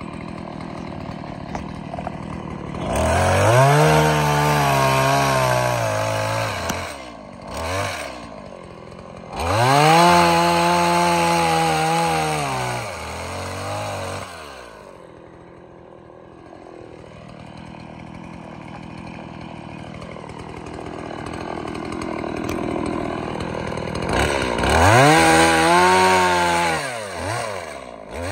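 Two-stroke chainsaw revved up to high speed in three long bursts of a few seconds each, its pitch sagging slightly through each burst, dropping back to a quieter low running between them.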